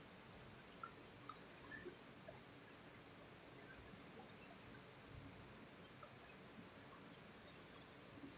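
Near silence: a faint background hiss with a few faint, scattered high chirps.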